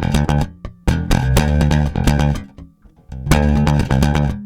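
Intro music: a loud, rhythmic run of plucked notes, broken by short pauses about a second in and about three seconds in.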